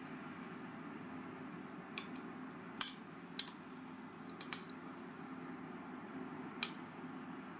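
Coffee poured from a carton over ice cubes in a glass, with a handful of sharp clicks and cracks from the ice, the loudest near the end.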